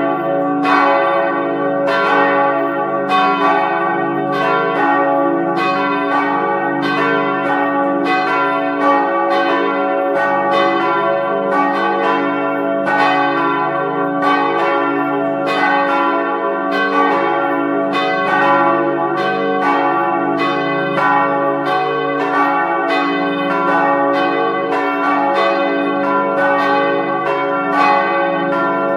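Church bells ringing continuously, struck in quick succession at about two strokes a second, the tones of each bell ringing on and overlapping, in the manner of change ringing.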